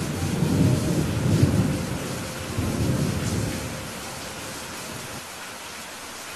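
Rain falling steadily with a low roll of thunder that swells twice over the first three seconds or so, then dies away, leaving the even hiss of the rain.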